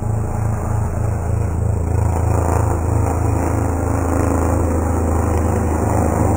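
Distant helicopter in flight: a steady low drone of rotor and turbine with a regular pulsing beat from the rotor blades, growing slightly louder near the end.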